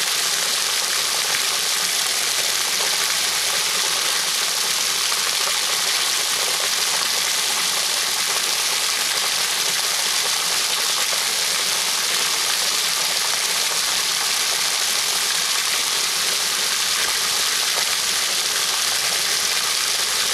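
A stream of water pouring steadily into a shallow plastic wading pool, splashing over a raccoon swimming under it.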